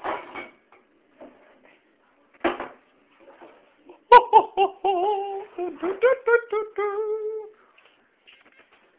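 A person humming in a high voice: a quick run of short, gliding notes lasting about three seconds, starting with a sharp click. Before it come a couple of short noisy bursts.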